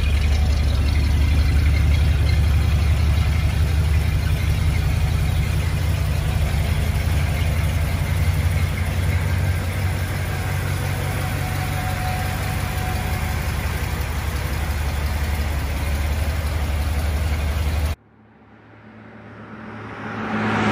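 1965 Ford Galaxie 500's 390 cubic-inch V8 idling steadily. It cuts off abruptly about 18 seconds in, and a rising whoosh sound effect swells up in its place.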